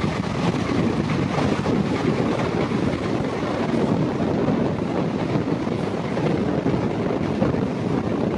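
Double-stack container freight train passing close by on the adjacent track, heard from the doorway of a passenger coach: a steady rumble of wagon wheels on rail, with wind buffeting the microphone.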